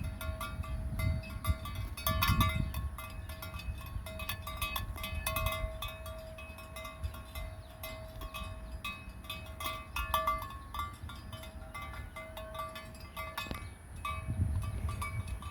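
Cowbells on grazing cows clanking irregularly, with a steady ringing tone carrying between the strikes. A low rumbling noise runs underneath, stronger at the start and again near the end.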